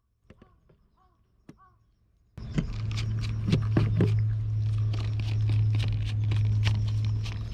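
Cat crunching dry food close to the microphone: many sharp, irregular clicks over a steady low hum. The crunching starts suddenly about two and a half seconds in, after a couple of seconds of near quiet with a few faint short calls.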